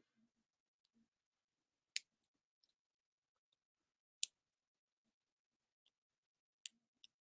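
Three sharp little clicks, about two seconds apart, each followed by a fainter tick, from fingers working an Apple Watch and its fitted band.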